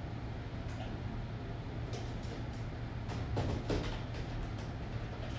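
A few light knocks and clatters of objects being handled and set down on a desk, clustered a little past the middle, over a steady low electrical hum.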